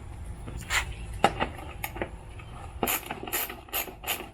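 Hand work on the underside of an upended Toro walk-behind mower: a few scattered clicks and knocks, then from about halfway a regular run of scraping strokes, about two to three a second.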